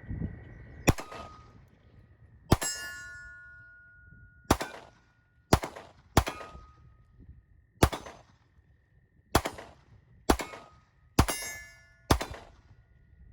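About ten single gunshots fired at a slow, uneven pace, most of them followed by a short metallic ring from a steel target being hit.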